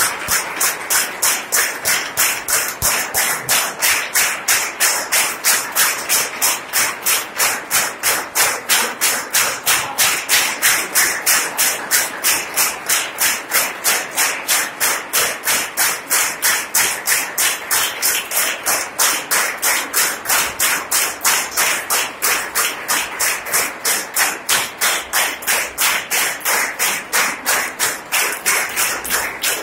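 A group of people clapping together in a steady rhythm, about three claps a second, over the hubbub of a crowd.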